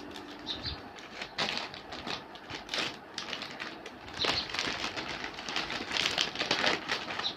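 Plastic biscuit packaging crinkling and rustling in irregular crackles as Oreo packs are handled and opened.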